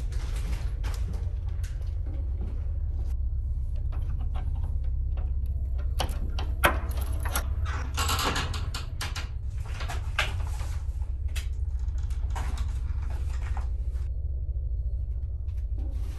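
Scattered knocks, clatter and rattling of a door and objects being handled and moved about in a storeroom, with one sharp click about six and a half seconds in. A steady low hum runs underneath.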